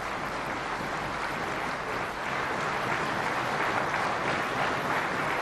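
Applause from a chamber full of parliament members: many hands clapping at once. It swells in at the start and then holds steady.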